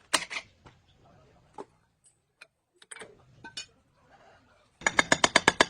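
Scattered clinks and taps of tools on metal. Near the end comes a rapid, even run of sharp metallic strikes, about ten a second for roughly a second, the loudest part.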